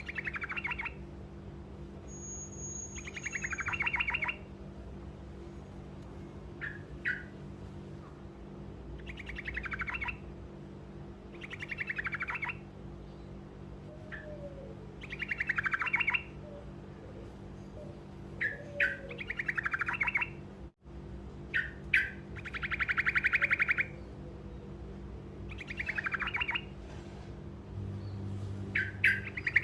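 Yellow-vented bulbul (trucukan) singing short rolling trills, each about a second long, repeated every two to three seconds with brief sharp chips in between.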